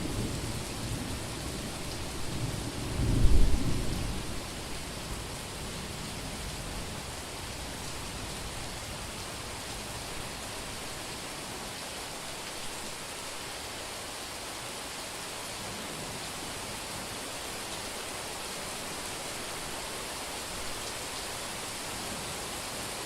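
Rain falling steadily on a street during a summer thunderstorm, with a loud rumble of thunder about three seconds in that fades out within a second or two, after which only the steady rain remains.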